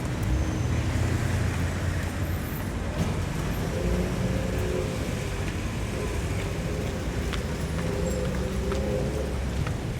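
Steady main-road traffic: vehicles passing with a continuous rumble of engines and tyres. From about four seconds in, one engine's steady hum stands out above the rumble until near the end.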